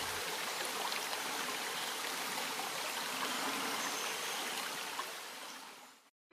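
A small stream running over stones, a steady rush of water that fades out near the end.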